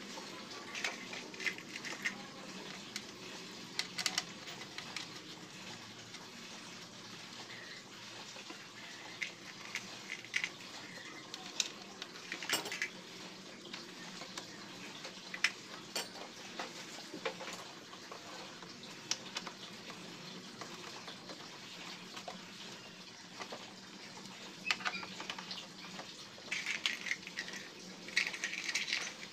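Scattered clicks, clinks and knocks of hand tools and screws as a scooter's plastic CVT side cover is fitted and bolted back on, busier near the end, over a steady background hiss.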